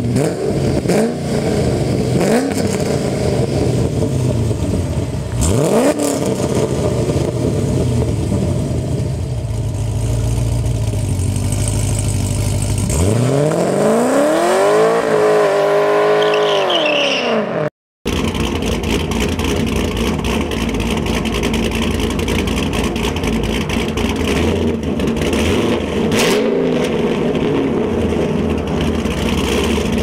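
Pontiac G8 GT's 6.0-litre V8 through Kooks headers and a Magnaflow exhaust, revved in short blips, then accelerating hard away with the note climbing and falling. After a break, a second G8 GT V8 with Pypes headers and a Solo Street Race exhaust idling, with one short rev.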